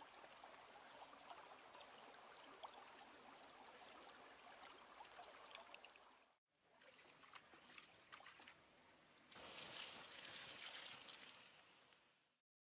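Faint trickling of a small stream over rocks, broken by a short dropout about six seconds in. It swells into a louder hiss for a couple of seconds near the end, then fades out.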